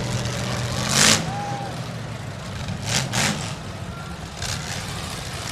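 Demolition derby car engine running with a low rumble, broken by a few short, sharp bursts of noise, the loudest about a second in and two more close together around three seconds.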